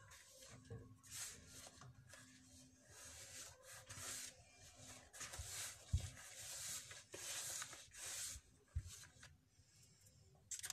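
Hands rubbing and squeezing flour into ghee in a plastic bowl: faint, irregular rustling strokes, with a couple of dull knocks, the first about six seconds in.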